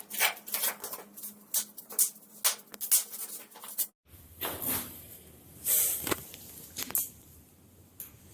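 Foam packing and plastic wrapping on a new ebike rustling and crinkling as they are pulled off by hand, with irregular clicks and knocks. There is a brief break about four seconds in.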